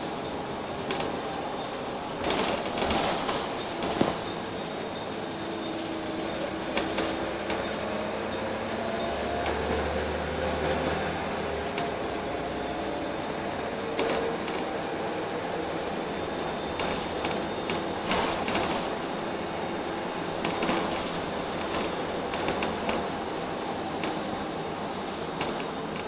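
Inside a Wright Eclipse single-deck bus on the move: steady engine and road noise, with the engine note rising and falling. Bursts of clicks and rattles come several times.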